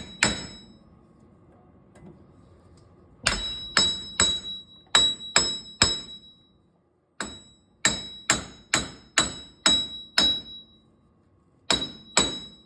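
Hammer blows ringing on a 1998 Jeep Cherokee XJ's steel front wheel hub assembly, knocking the stuck hub loose. The blows come in quick runs of several strikes, about two or three a second, with short pauses between runs.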